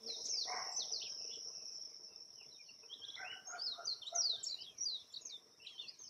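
Outdoor ambience of several birds chirping and calling over a steady high insect trill. The bird calls come thickest in the second half.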